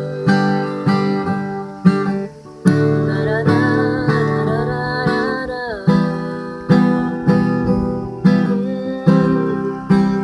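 Acoustic guitar strumming chords in a steady rhythm, with a brief break about two and a half seconds in.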